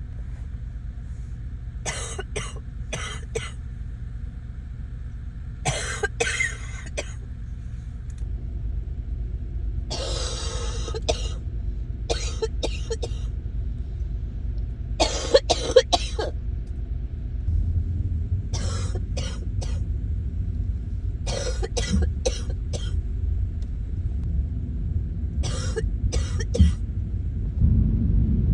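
A congested, sick person coughing in short fits of two to four coughs, repeated every few seconds. A steady low rumble runs underneath and gets louder about two-thirds of the way through.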